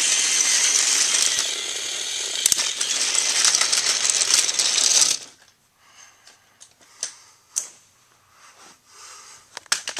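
Battery-powered TOMY toy train, its motor running and its plastic wheels rattling loudly along plastic track as it pulls a rake of vans past. The noise cuts off suddenly about five seconds in, followed by a few faint clicks.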